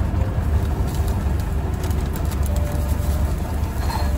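Steady low rumble of a 10-ton truck's diesel engine idling, heard inside the cab, with faint sizzling from a frying pan and a few light clicks.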